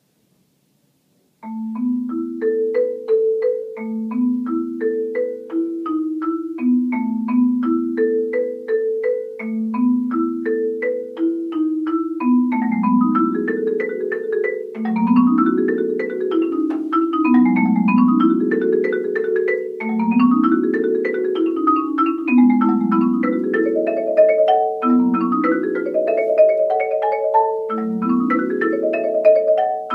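Solo marimba played with mallets, starting about a second and a half in. It plays repeated broken-chord figures in its low and middle range that grow denser and climb into rising runs partway through.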